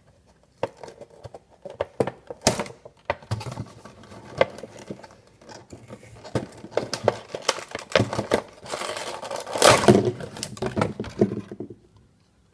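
A Funko Pop's cardboard box and plastic insert being handled and opened: a run of sharp clicks, scrapes and some tearing, with a longer stretch of rustling and tearing about nine to eleven seconds in.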